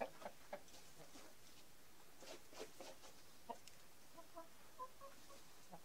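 The last of a rooster's crow cuts off at the very start, then faint, soft clucking from hens with scattered light ticks and rustles from the coop floor; a few short clucks come around four to five seconds in.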